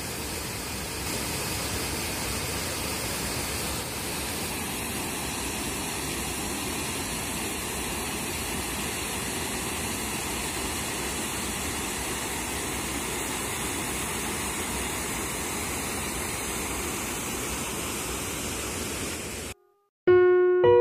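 Waterfall cascading over stepped rock ledges: a steady rush of falling water. It cuts off suddenly near the end, and piano music starts.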